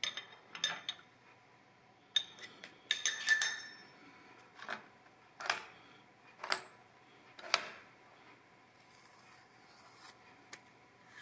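Metal-on-metal clinks and clicks of a spanner on the nuts and steel strap clamps bolted to a milling machine table, as the clamps are tightened down: a cluster of clinks, then single sharp clicks about once a second, and a brief soft rubbing near the end.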